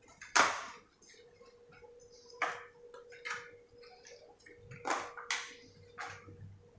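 Kitchen utensils and cookware being handled: a series of sharp knocks and clatters, the loudest about half a second in, over a faint steady hum.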